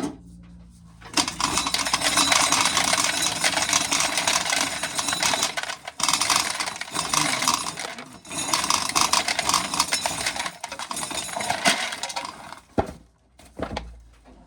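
Dry corn being shelled off the cob: a dense rattle of hard kernels stripping away and clattering down. It starts about a second in and stops near the end, with two brief breaks in between.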